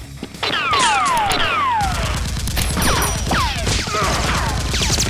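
Gunfire sound effects in an action shootout. About half a second in, several whines fall in pitch, and from about two seconds on a rapid burst of automatic fire runs on.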